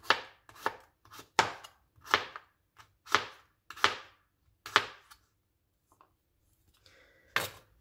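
A kitchen knife chopping garlic, mincing it finely in evenly spaced strokes about two-thirds of a second apart. The chopping pauses about five seconds in, and one last chop lands near the end.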